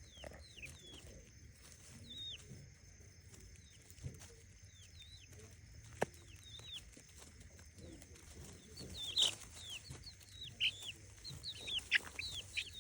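Chickens calling: a run of short, high chirps and clucks that grows busier near the end, over a steady high background whine. One sharp click about six seconds in.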